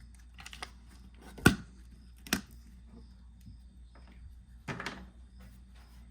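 Handling knocks and clicks of a plastic motor-oil jug and funnel being readied to fill the engine: two sharp clicks, the louder about a second and a half in, then a brief rustle near the end, over a faint steady hum.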